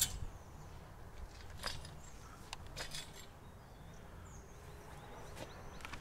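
A handful of light knocks and clicks as felling gear is handled and set down: a pole and equipment at the foot of a tree, spaced a second or so apart. Faint bird chirps sound between them.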